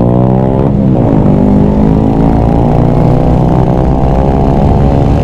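Honda CG 125 SE's single-cylinder OHV four-stroke engine running under way. The engine note drops, then climbs again about a second in and settles into a steady pull.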